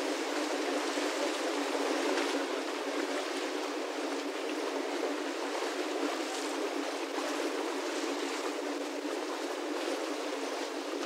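Steady rushing wash of lake water lapping against shoreline rocks.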